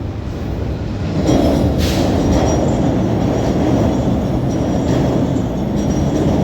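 A passing train: a loud, steady rumble that swells about a second in, with faint high wheel squeal on top.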